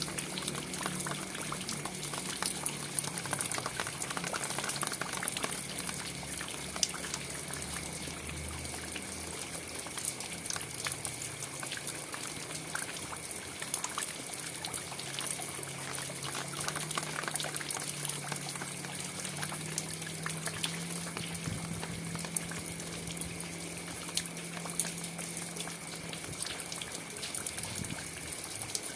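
Steady rain falling, with many separate drops ticking over a constant wash of running water. A faint steady high tone sits underneath.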